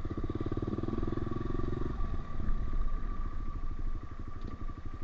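Honda CRF125F's single-cylinder four-stroke engine running at low revs, its note changing about two seconds in, with a steady high whine alongside.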